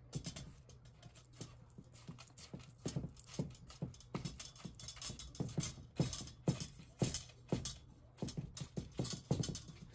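Chicken cubes being coated by hand in flour and breadcrumbs in a stainless steel pot: irregular taps and knocks of fingers and chicken pieces against the metal, a few a second, over a low steady hum.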